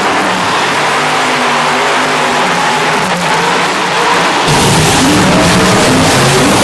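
Monster truck engines running and revving across the arena floor. About four and a half seconds in, one truck revs up louder.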